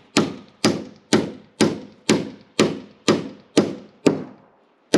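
Hammer driving a nail through a wooden purlin into a roof truss: steady blows about two a second, each ringing briefly, then a short pause and one last blow near the end.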